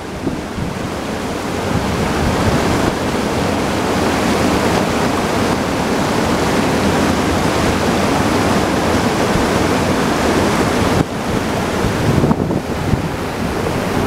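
Steady rush of the Uchan-Su waterfall's water pouring over the rock lip, with wind buffeting the microphone. About eleven seconds in, the sound dips briefly and turns uneven.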